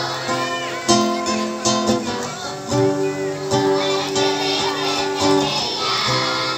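Music led by a strummed acoustic guitar, its chords changing every second or two.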